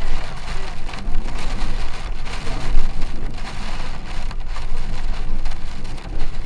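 Heavy rain pelting a storm-chase vehicle in a severe thunderstorm, a dense spatter of drops with a low rumble underneath.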